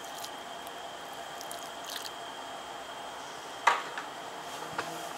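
Water poured from an electric kettle onto a wet duvet, soft squishing and dripping over a steady background hiss, with a few light clicks and one sharp knock about three and a half seconds in.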